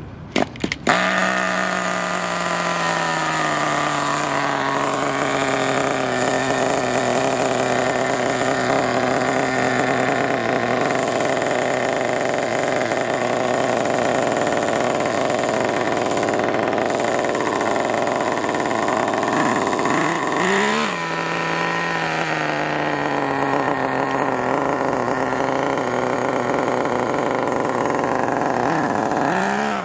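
Small nitro (glow-fuel) RC car engine starting with a few sharp pops about a second in, then running steadily with a buzzy, high-pitched note. It gives a brief rev about twenty seconds in and starts another rev near the end.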